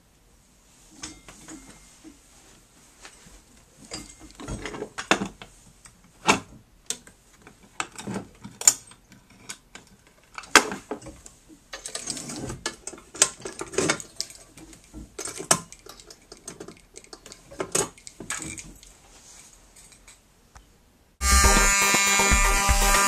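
Irregular clicks and light clattering of hardware being handled, then near the end a fire alarm sounder starts abruptly and sounds loudly with a steady buzzing tone.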